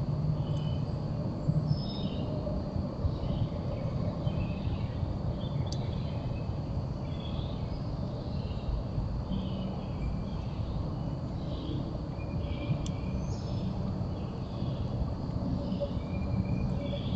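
Many faint, short, high bird chirps repeating about once a second, over a steady low rumble.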